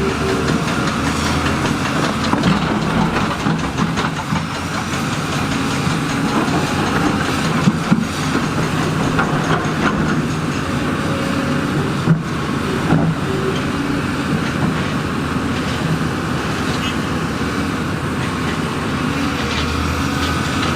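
Heavy earthmoving machine's diesel engine running steadily under load, with a continuous metallic track clatter and a few sharp knocks.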